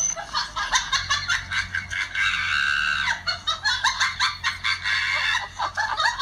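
Rapid, high-pitched cackling, many short cackles in quick succession, over a faint low hum.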